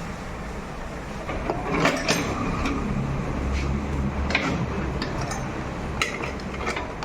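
Metal tools and motorcycle parts clinking and knocking several times, at irregular intervals, over a steady low hum.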